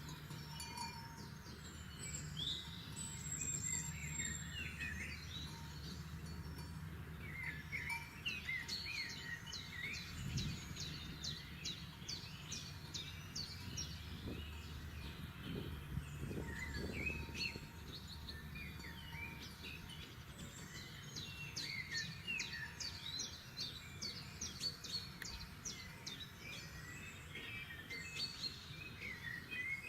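Several forest songbirds singing together: quick chirps and fast runs of repeated notes, busiest twice in the middle, over a low steady background rumble.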